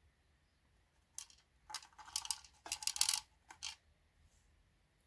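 Small loose metal screws clinking and rattling in several quick bursts, starting about a second in and ending before four seconds.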